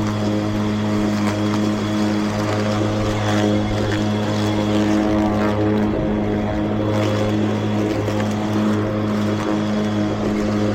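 Battery-electric Mowrator remote-control mower running with its blade spinning: a steady hum holding one pitch, with a faint high whine above it.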